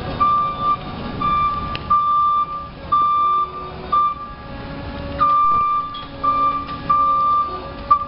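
Travel warning beeper on a Crown RC3020-30 stand-up electric forklift, sounding a high, even beep about once a second while the truck moves, over a steady hum.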